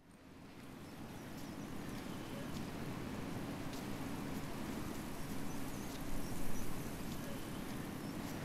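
Outdoor ambience fading in: a steady low rumble, as of distant traffic, with faint bird chirps and a few scattered ticks on top, swelling briefly about six seconds in.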